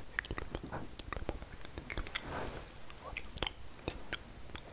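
ASMR mouth sounds close to a condenser microphone: a quick irregular run of wet lip and tongue clicks and smacks, with a soft breathy hiss about halfway through.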